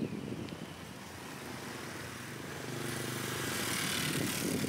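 A motor vehicle's engine running and drawing closer, growing steadily louder, with a rising hiss of its passing from about three seconds in.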